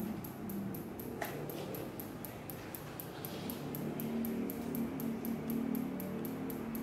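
Radial shockwave therapy device firing in a steady run of sharp clicks, about four a second.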